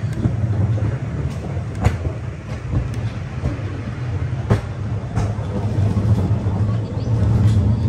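Small rail cart running along a narrow-gauge track: a steady low rumble, with sharp clacks of the wheels over the rails about two seconds in and again about four and a half seconds in.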